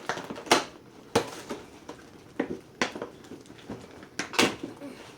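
Doll packaging being handled and pulled apart: an irregular series of sharp crinkles, clicks and knocks of plastic and cardboard.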